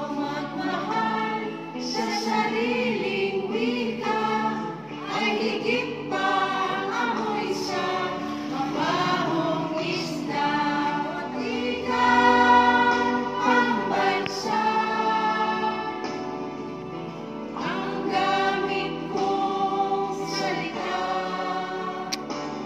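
A group of voices singing a song together, choir-like, with musical backing.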